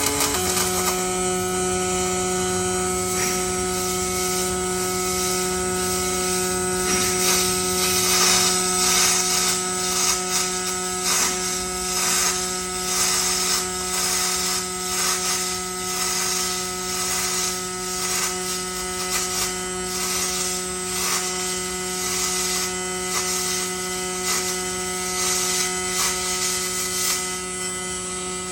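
Robotic arc welding cell running: a steady electrical hum that starts abruptly, with irregular crackling over it from about seven seconds in.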